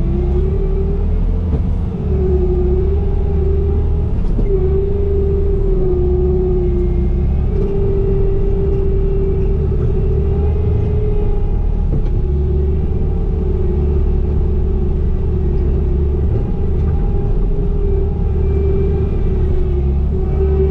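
Diesel engine of a Bobcat compact machine running steadily under work, a continuous low rumble with a whine on top that wavers up and down in pitch.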